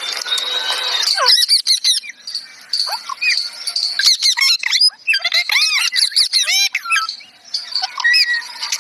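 Parrot chirping and squawking in quick runs of short rising-and-falling calls, starting about a second in.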